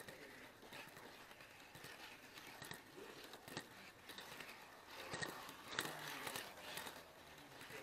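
HO-scale model railway camera car rolling along the track, its wheels clicking irregularly over rail joints and turnouts, busier and louder about five seconds in.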